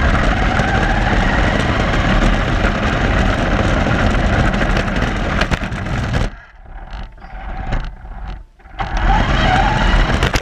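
RC car driving, heard from a camera riding on it: its motor whines and the tyres rumble over rough pavement. The noise drops away about 6 s in as it slows, then comes back about 9 s in with the motor whine rising as it speeds up again.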